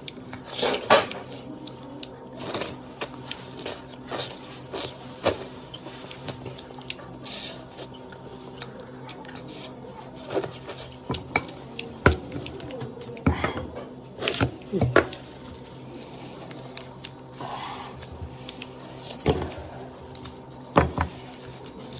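Cutlery and dishes clinking and knocking now and then during a meal, with sharper knocks clustered around the middle and near the end. A steady low hum runs underneath.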